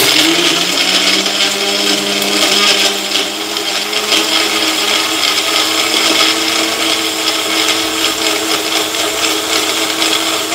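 Bullet-style personal blender switching on sharply and running steadily, grinding mint and coriander leaves, green chilli, ginger, ice and a little water into a paste.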